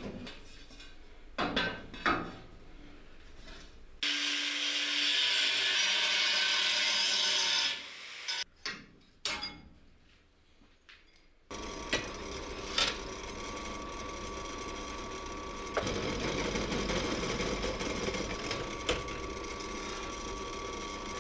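Workshop power-tool work. A few knocks come first, then a loud burst of cutting or grinding noise for about four seconds and more sharp knocks. Near the middle a power tool starts and runs steadily, with a constant whine, to the end.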